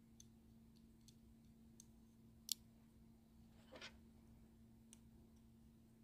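Near silence broken by faint small clicks and taps from the metal parts of a taken-apart Boker Kalashnikov automatic knife being handled during reassembly, with one sharper click about halfway through.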